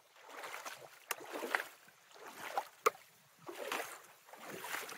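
Bare feet wading through a shallow, stony stream, each step a splash of water, about one a second, with two sharp clicks along the way.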